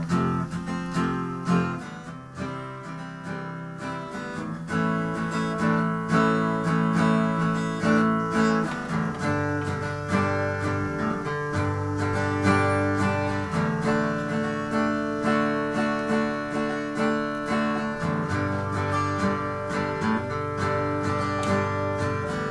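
Background music led by a strummed acoustic guitar, at a steady, even pace.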